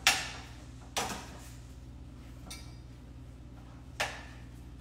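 Cookware being handled at a kitchen stove: three sharp clanks, the first the loudest, the other two about a second and four seconds in, over a low steady hum.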